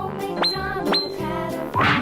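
Cheerful children's background music with cartoon sound effects: two quick rising whistles about half a second apart, then a louder whooshing burst with a wobbly rising whistle near the end.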